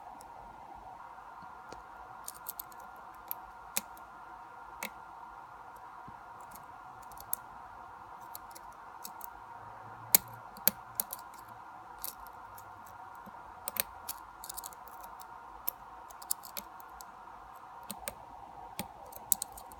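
Lock pick and tension tool working the pin stack of a lock cylinder during single-pin picking: small scattered metallic clicks and taps, the sharpest about ten seconds in, over a faint steady hum.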